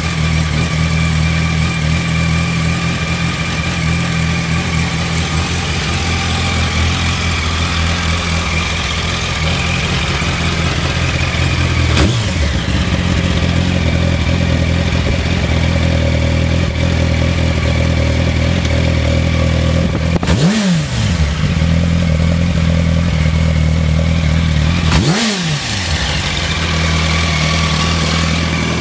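Yamaha YZF-R1's inline-four engine idling steadily through its twin under-seat mufflers. It gets two short throttle blips, about two-thirds of the way through and again a few seconds later, each time the revs rising and dropping straight back to a settled idle.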